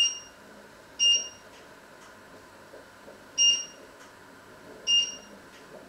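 Four short, high electronic beeps, unevenly spaced a second or two apart.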